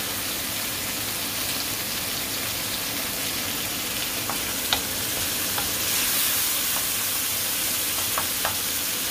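Diced tomato and onion sizzling in oil in a nonstick frying pan, a steady hiss. A wooden spoon stirs the pan, with a few light clicks against it in the second half.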